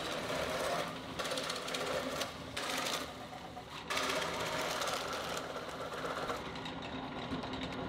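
Drill press running with a 2-inch Forstner bit boring holes through plywood, under a steady motor hum. The cutting noise swells and drops several times as the bit is fed into the wood and lifted out.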